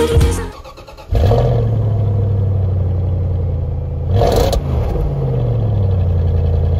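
A Mercedes Sprinter van's engine starts about a second in and idles steadily. It is revved briefly about three seconds later, then its pitch falls back to idle.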